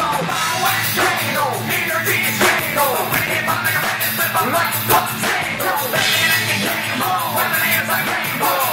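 Live amplified band music with a man's vocals delivered into a microphone, loud and continuous.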